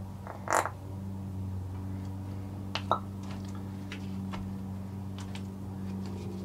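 Small clicks and scrapes of a stick stirring in a plastic mixing cup and a plastic bottle being handled, with a short sharp noise about half a second in and a louder click near 3 seconds, over a steady low hum.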